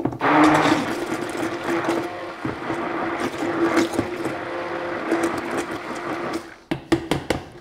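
Electric blender running steadily, puréeing a salad dressing of potatoes and sour cream. The motor stops about six and a half seconds in, followed by a few short knocks.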